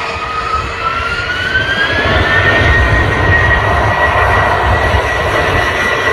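Jet airliner engines running, a whine rising in pitch over the first two seconds or so as the engines spool up, then holding steady over a low rumble that grows louder.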